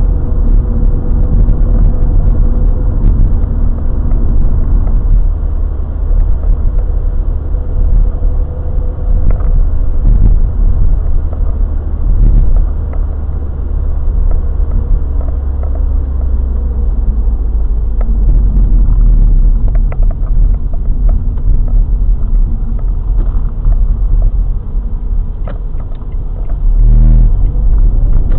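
Steady low rumble of a car being driven, heard from inside the cabin through a dashcam's microphone.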